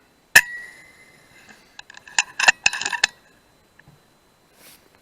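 FX Dreamline .177 PCP air rifle firing once, a sharp crack with a short metallic ring. It is followed about two to three seconds in by a quick cluster of metallic clicks and clacks.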